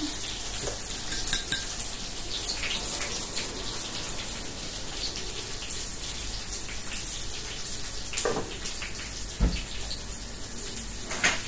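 Steady sizzling hiss of breaded mushrooms deep-frying in hot oil in a pan. A few light clicks and a low knock come from a glass jar and its lid being handled.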